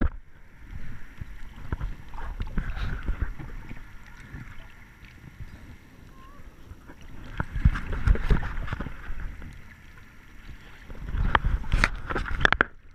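Muffled water noise heard through a camera held just underwater: irregular low sloshing and rumbling as the water moves around it, with bubbling, swelling louder a few times and breaking into a cluster of sharp crackles near the end.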